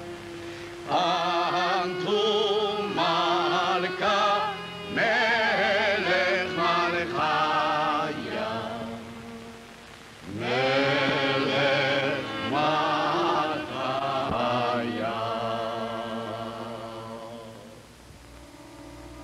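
Solo voice singing a slow, ornamented chant-like melody with heavy vibrato, in two long phrases separated by a short pause, over a low sustained accompaniment; it fades away near the end.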